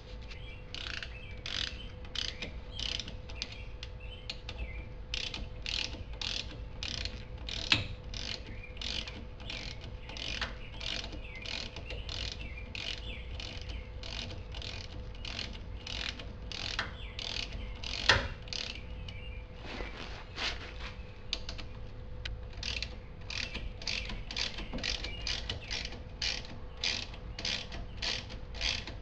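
Hand ratchet clicking steadily, about two clicks a second, as a brake caliper bolt is run in and tightened. Twice a sharper metallic knock stands out, and a faint steady hum runs underneath.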